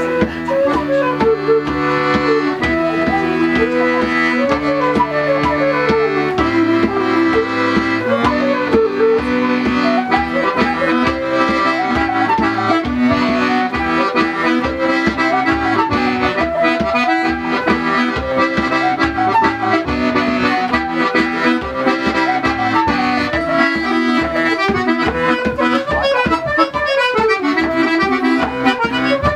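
Button accordion and transverse flute playing a French bourrée together, the accordion's left hand keeping a steady pulsing bass-and-chord accompaniment under the melody.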